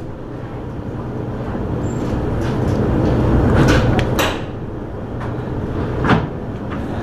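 Steady low hum with a few short knocks, the loudest a little after halfway and one about six seconds in.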